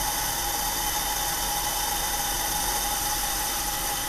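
Green coffee beans being charged from the hopper into the hot rotating drum of a Probat P5 III shop roaster: a steady rushing rattle, with a steady high whine under it.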